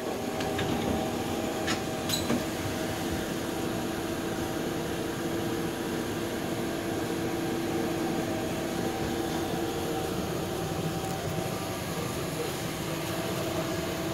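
Inside a Toronto streetcar: the steady rumble and electrical hum of the car running along the street, with a couple of short clicks about two seconds in.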